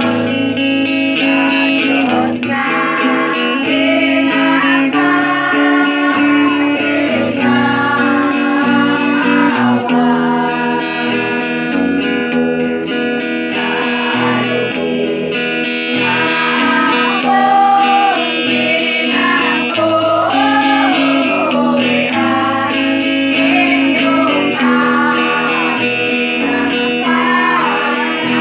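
A group of women singing a song together to guitar accompaniment.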